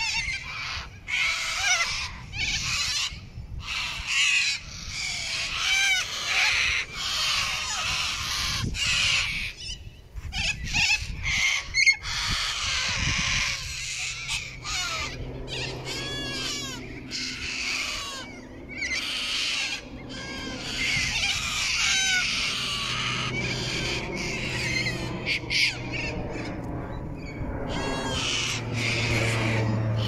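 A large flock of little corellas screeching and squawking, many harsh calls overlapping without a break. From about halfway through, a low steady hum sits underneath and grows louder near the end.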